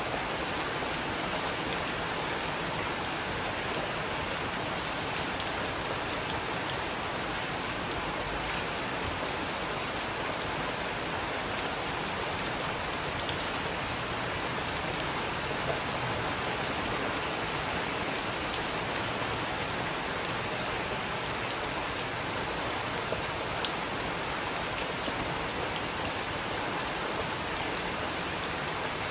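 Steady rain falling, an even hiss, with a few sharp clicks scattered through it.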